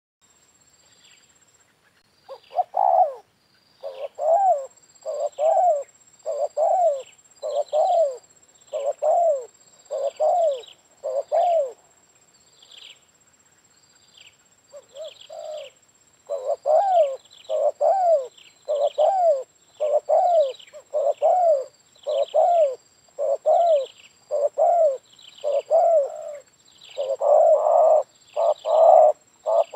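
Spotted dove cooing: a long run of rounded coo notes, a little under one a second, starting about two seconds in. The notes break off briefly near the middle and come louder and fuller near the end.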